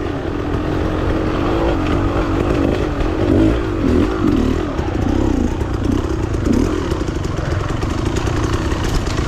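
Beta Xtrainer 300 two-stroke dirt bike engine being ridden, its revs rising and falling repeatedly, about every second.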